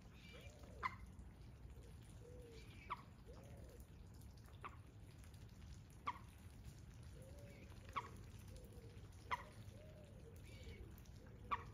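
Water drops falling into a pond, about seven sharp plinks, each rising in pitch, one every second or two, over a low steady rumble. Faint soft calls sound between them.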